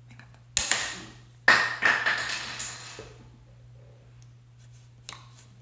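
Metal lipstick case handled and capped: two sharp knocks about a second apart, the second with a brief ring. A faint click follows near the end.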